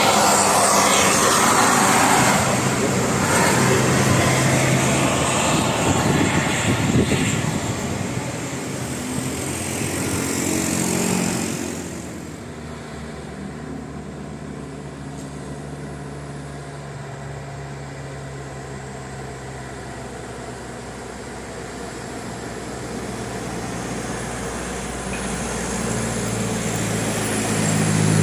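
Large vehicles going by on a road: loud engine and road noise for about the first twelve seconds, which drops off suddenly, then a quieter, steady engine hum that slowly grows louder again near the end.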